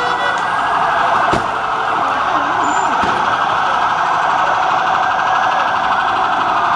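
Police armoured van's siren wailing steadily while the van drives past. There is a sharp knock about a second and a half in, and shouting voices.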